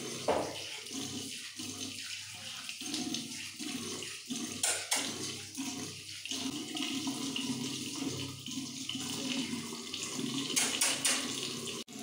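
Tap water running into a bathroom sink and splashing over hands as a young Alexandrine parakeet is washed under the stream. The sound drops out for an instant just before the end.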